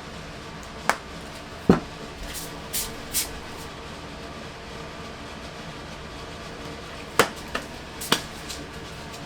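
Kitchenware being handled: a few sharp knocks and clinks, the loudest about two seconds in, and two brief rustling hisses around three seconds, then three more knocks near the end.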